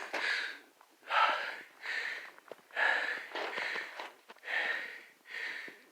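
A person breathing hard and fast after running, loud breaths in and out about once a second, with faint clicks between the breaths.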